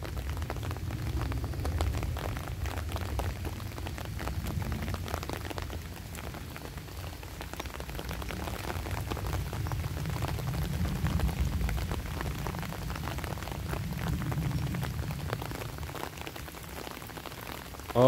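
Rain pattering on an open umbrella held overhead: many small drop ticks over a steady low rumble.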